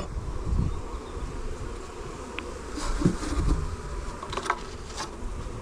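Honey bees buzzing in a steady mass around an open hive just after a nucleus colony has been transferred into it, with a few light clicks in the second half.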